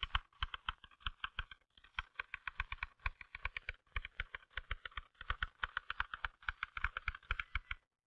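Typewriter being touch-typed at speed: a rapid, even run of key strikes clacking on the platen, with a brief break about a second and a half in.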